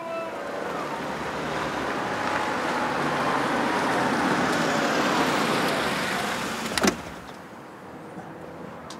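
White Renault car driving up and pulling to a stop: engine and tyre noise swells, peaks and eases off. About seven seconds in comes a sharp click, after which the sound drops to a low steady hum.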